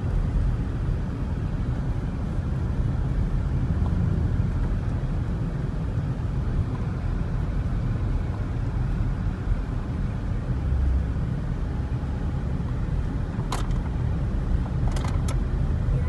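Road noise heard inside a moving car's cabin: a steady low rumble of engine and tyres. A few short, sharp clicks come near the end.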